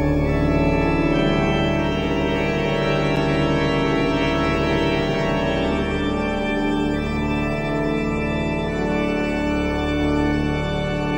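Organ music playing sustained, many-note chords that change every few seconds.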